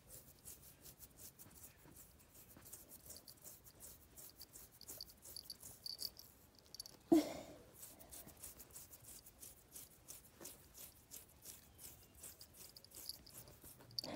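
Fingernails scratching a chihuahua's short fur in quick, even, rhythmic strokes, faint and rasping. One brief louder sound about seven seconds in.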